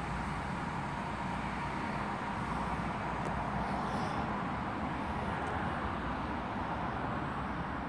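Class 165 'Turbo' diesel multiple unit pulling out, its engines running with a steady rumble and a faint steady whine.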